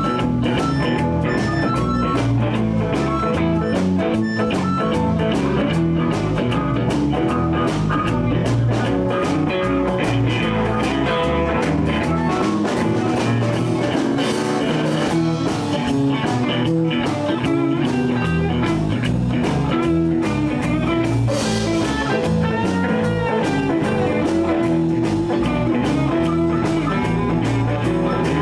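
Live blues band playing: electric guitar over bass and drums, with bent, sliding notes.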